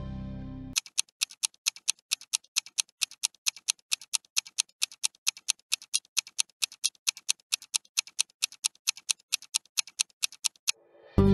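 Countdown clock ticking sound effect: an even run of sharp ticks, about four a second, for about ten seconds. The tail of background music fades out at the start, and music cuts back in just before the end.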